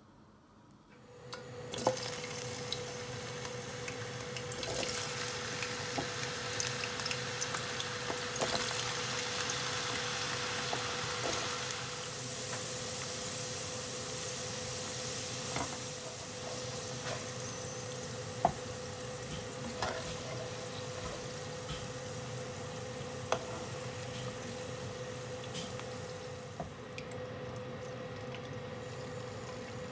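Hot oil sizzling as diced potatoes fry in a pan, stirred with a silicone spatula that knocks against the pan now and then, starting about a second and a half in. Near the end a quieter sizzle of tofu cubes frying in oil. A steady thin hum runs underneath.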